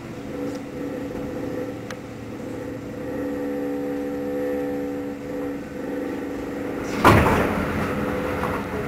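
Keikyu 600 series electric train running, heard from inside the lead car: a steady hum with several layered tones. About seven seconds in, a sudden loud rush of air and wheel noise as an oncoming train passes close alongside on the next track.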